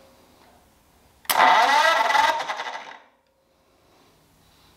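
Starter motor cranking a 1937 Ford flathead V8 over for a compression test, in one burst of just under two seconds that starts about a second in, its pitch rising as it spins up before cutting off. The starter is run off an 18-volt cordless-tool battery, which was drained quickly.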